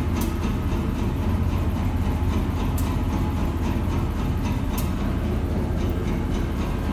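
Diesel locomotive engine running steadily close by, a deep even rumble. A few sharp ticks sound over it, about three seconds apart.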